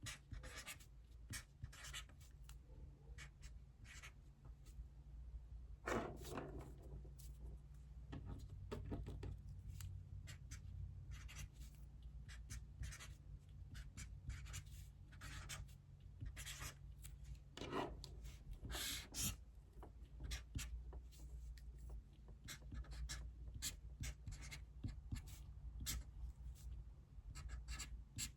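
Faint handwriting on paper: short scratchy strokes in quick, irregular runs with brief pauses between, over a low steady hum.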